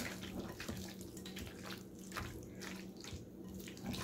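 Wooden spoon stirring mayonnaise-dressed potato salad in a glass bowl: soft wet squelches and light scrapes, several a second and unevenly spaced, over a low steady hum.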